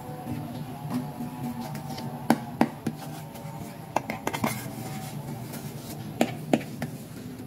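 Hard pink plastic toy pieces handled: several sharp clicks and taps, some in quick pairs, as the toys are picked up and turned over.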